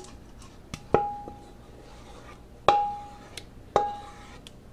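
A serving spoon knocked against a dish rim to shake off mashed sweet potato casserole mixture: three ringing clinks with a few lighter taps between them.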